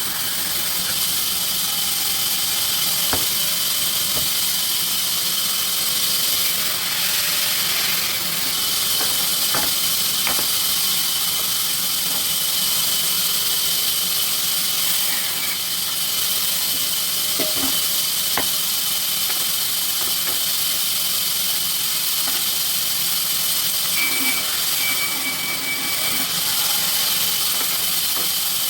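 Sawmill machinery running steadily: a continuous high hissing whine with a few faint clicks and knocks.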